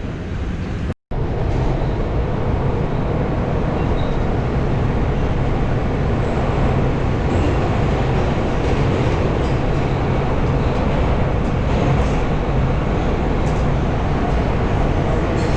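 New York City subway train running: a loud, steady rumble that drops out for a moment about a second in, then carries on unbroken.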